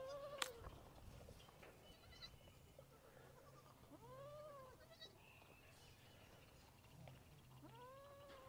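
Baby goats bleating faintly, three short rise-and-fall calls about four seconds apart, with a single sharp click about half a second in.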